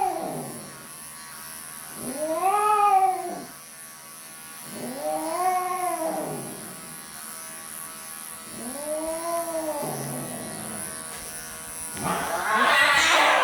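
Cat yowling in protest at being groomed: three long caterwauls a few seconds apart, each rising then falling in pitch. Electric clippers whine steadily throughout, and a harsh noisy burst comes near the end.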